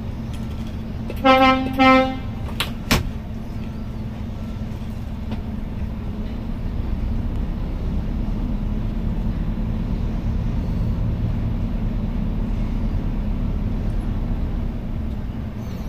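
Scania P410 XT truck's horn giving two short toots about a second in, followed by a couple of sharp clicks, over the truck's diesel engine running, heard from inside the cab. The engine gets a little louder from about six seconds in as the truck pulls away for a road test.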